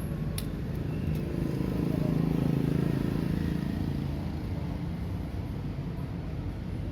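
A low, steady mechanical rumble that swells for a couple of seconds and then eases off, with one sharp click near the start.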